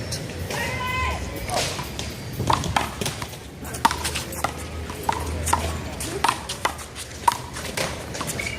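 One-wall handball rally: the small rubber ball slapped by bare or gloved hands and smacking off the wall and pavement, a string of sharp slaps at irregular intervals.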